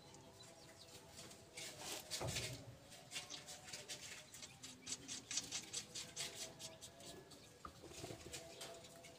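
Faint, irregular light clicks and metal taps of hand work on a truck's differential carrier as it is bolted back into the rear axle housing: nuts and tools against the cast-iron case.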